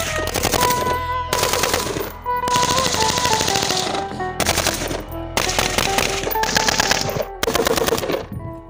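Full-automatic gunfire: several long bursts of rapid shots from automatic weapons, a submachine gun and rifles, broken by short pauses, with music playing underneath.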